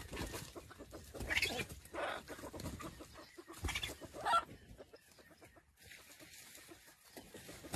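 Chicken clucking: several short calls in the first half, then quieter.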